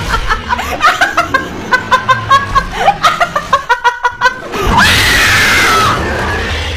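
A woman laughing hard in rapid bursts of 'ha', then a long, loud, high-pitched shriek starting about four and a half seconds in.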